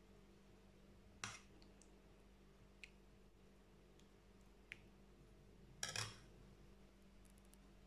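Near silence: room tone with a faint steady hum and a few small clicks and taps, the two most distinct about a second in and about six seconds in.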